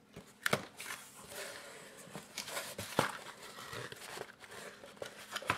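Cardboard mailer box being opened by hand: the lid and flaps scraping and rustling, with a few sharp clicks and taps.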